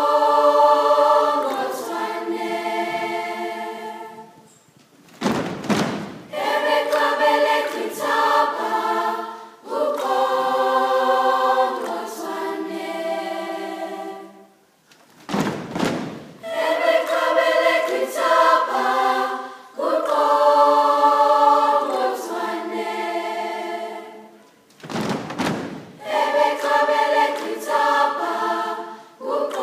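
Large school choir singing sustained chords in long phrases. The singing breaks off about every ten seconds, with a short noisy rush at each break.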